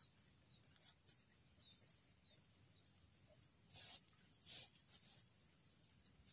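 Near silence: faint outdoor ambience, with a couple of soft brief sounds about four seconds in.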